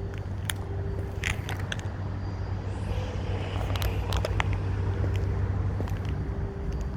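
A car engine running at a steady idle, heard as a low, even hum, with scattered sharp clicks over it.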